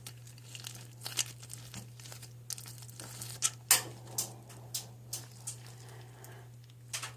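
Bead slime being squeezed and played with by hand, giving irregular crackling and popping clicks.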